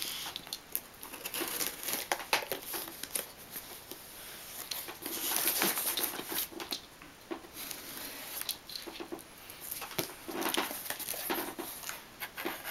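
Cardboard shipping box being cut open with a folding knife and unpacked: tape tearing, cardboard scraping and paper rustling in irregular bursts.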